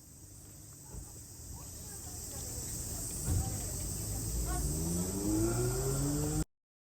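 Insects chirping steadily in a high band while a vehicle engine builds up and rises in pitch over the last couple of seconds; the sound cuts off abruptly near the end.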